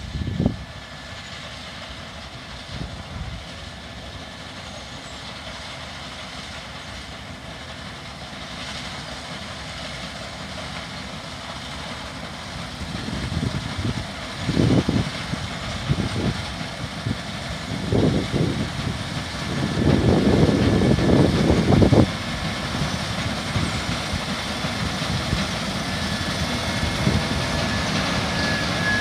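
Case IH 5140 Axial-Flow combine harvesting, its diesel engine and threshing machinery running steadily and growing louder as it approaches. Gusts of wind buffet the microphone several times in the second half.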